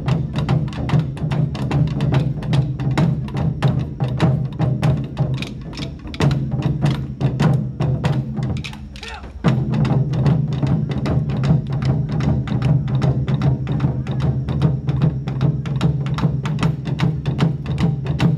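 Wadaiko, Japanese taiko drums, beaten with sticks in a fast, steady rhythm of about four strikes a second over a deep sustained drone. About eight seconds in, the deep sound falls away briefly, then comes back sharply.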